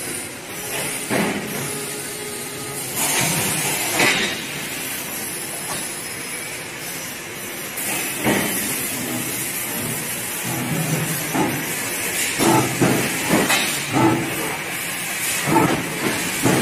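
Tube laser cutting machine and its automatic tube loader running: a steady hiss that swells now and then, with a run of sharp metallic knocks and clanks in the second half.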